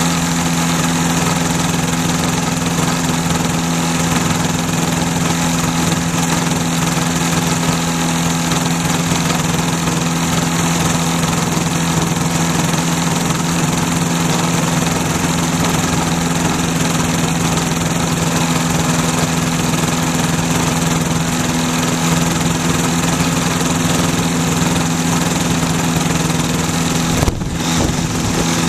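Flightstar II ultralight's engine idling steadily, a constant low drone that neither rises nor falls, with a short break about a second and a half before the end.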